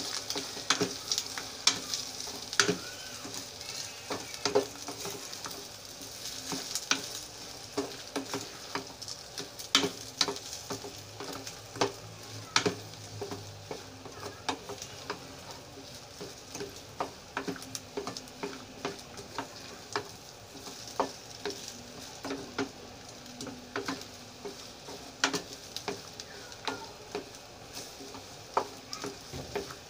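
Fried rice sizzling in a small metal saucepan while a wooden spatula stirs it, with frequent sharp taps and scrapes of the spatula against the pan. The sizzle is strongest in the first few seconds.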